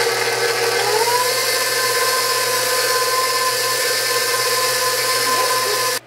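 KitchenAid stand mixer running, its flat beater turning through cupcake batter in the steel bowl. About a second in, the motor's whine glides up in pitch and then holds. It cuts off suddenly near the end as the mixer is switched off.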